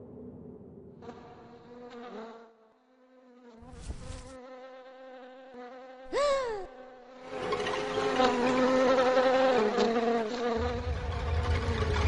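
A buzzing hum with many overtones, thin at first, grows louder and harsher about seven seconds in. A sharp swooping tone rises and falls about six seconds in, and a deep rumble joins near the end.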